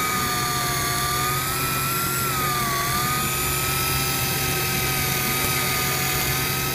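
Electric deep-drop fishing reel's motor winding in line: a steady whine of several tones whose pitch dips slightly a couple of times, over a steady low hum.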